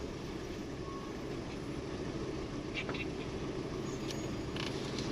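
Car running, a steady low rumble of engine and road noise, with a few faint high clicks about halfway through and again near the end.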